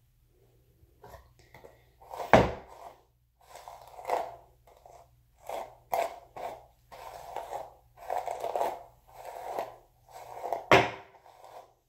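A hairbrush drawn again and again through thick curly hair close to the microphone, about ten strokes roughly a second apart, with two sharp knocks, the first about two seconds in and the loudest near the end.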